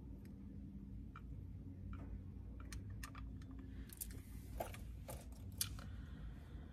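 Faint, scattered small clicks and taps of a person moving her hands, with beaded bracelets and rings on her wrist, over a low steady hum inside a parked car. The clicks bunch together in the second half.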